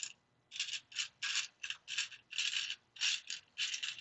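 Loose plastic LEGO pieces being rummaged through by hand: a quick series of short scraping rattles, about two or three a second.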